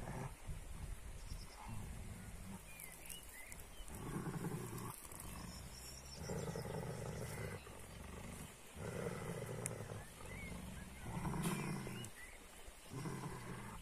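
Kangal shepherd dog growling in a series of low rumbles, about five growls of roughly a second each with short pauses between.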